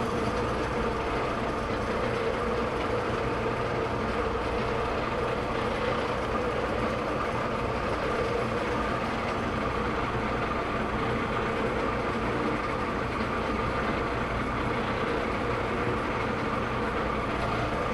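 Metal lathe running with a steady hum from its motor and gearing, unchanging throughout.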